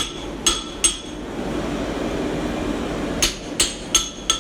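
Hand hammer striking hot steel on an anvil, each blow ringing metallically: three quick strikes in the first second, a pause, then four more near the end, over a steady low background noise.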